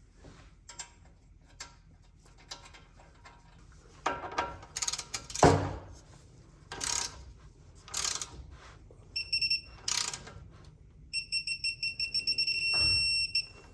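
Metal clanks and knocks as the tie rod end goes back in and its nut is tightened, then a high electronic beeping: a short burst, then a longer run of rapid beeps near the end, a digital torque wrench signalling that the set torque on the tie rod nut has been reached.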